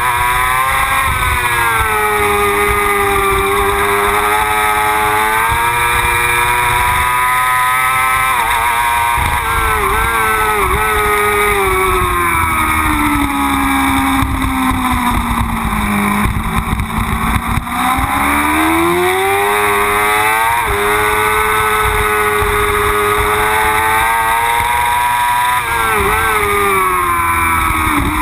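Yamaha R6 race bike's inline-four engine at high revs, heard onboard with wind rush. The pitch dips briefly at each quick gear change, falls steadily through a slow leaned-over corner around the middle, then climbs back as the bike accelerates out.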